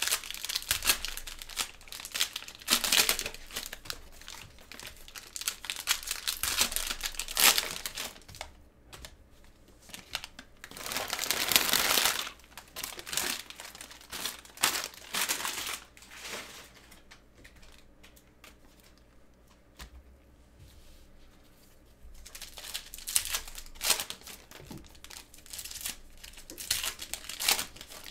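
Cellophane trading-card pack wrappers crinkling and tearing as packs are opened by hand, in irregular bursts. The longest, loudest swell comes about a third of the way in, with a quieter lull past the middle.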